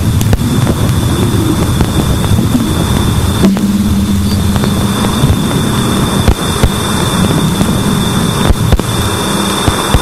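Voyager 2 Plasma Wave Subsystem (PWS) recording played as sound: a dense crackling hiss with a thin steady high tone. A low steady hum comes in about a third of the way through, and sharp clicks pop out here and there, several in the second half.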